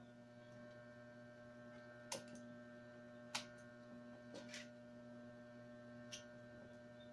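A handful of faint, sharp clicks of wicker spokes and strands knocking together as a coiled wicker basket base is handled, over a steady low electrical hum.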